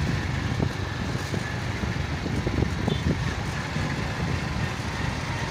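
Steady rumble of a moving road vehicle, with engine and road noise and uneven low buffeting.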